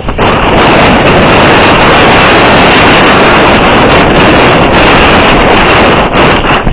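Strong wind buffeting the microphone: a loud, steady rumbling noise that comes up suddenly at the start and eases briefly near the end.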